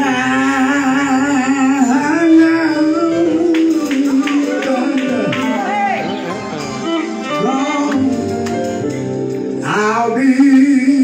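Male gospel quartet singing live with band backing: the lead voice sings with a wide vibrato over the other voices holding a chord, with guitar and drums underneath.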